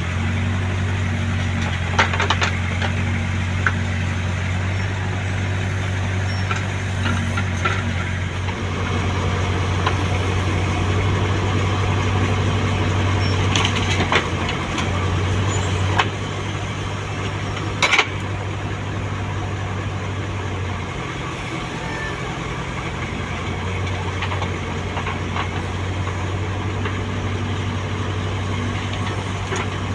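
Heavy diesel machinery engine running steadily at low revs, with a few sharp knocks.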